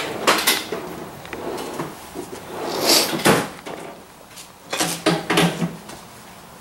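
Knocks and rattles of a tool chest drawer and tools being handled, in three bursts: right at the start, about three seconds in, and about five seconds in.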